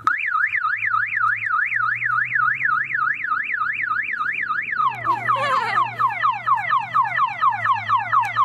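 Car alarm siren cycling through its patterns: a fast up-and-down warble of about three sweeps a second, switching about five seconds in to a rapid series of falling whoops at about the same pace.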